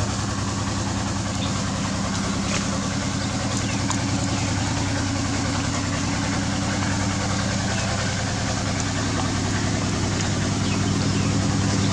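An engine idling steadily, growing slightly louder near the end.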